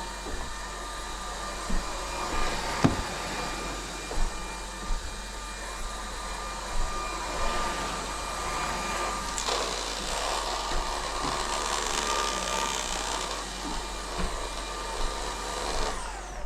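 Greenote cordless stick vacuum running steadily with a whine while vacuuming a floor, with scattered knocks from the brush head and debris.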